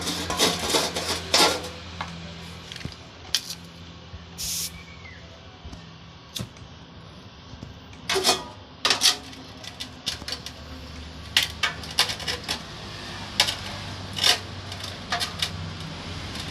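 Metal tools clinking and scraping in about a dozen short, separate strokes against refrigerator pipework, over a low steady hum.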